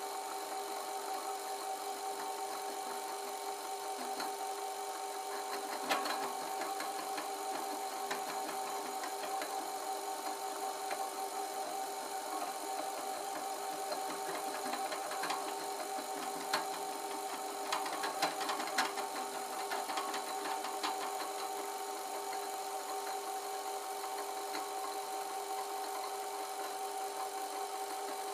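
Metal lathe running with a steady hum while its cutting tool works the surface of a spinning copper pipe. A few sharp ticks from the cut stand out, the loudest about six seconds in and a cluster a little past the middle.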